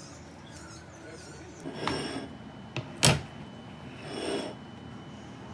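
Handling sounds: a short rustle, then a single sharp knock a little after the middle, followed by another brief rustle.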